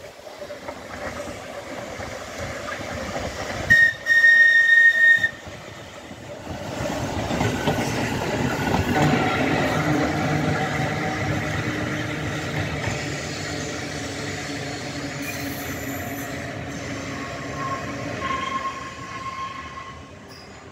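Manx Electric Railway tram car 22 sounds one whistle blast about four seconds in, then rumbles past on its electric motors and steel wheels, loudest as it goes by and fading as it moves away. A thin high tone comes in near the end.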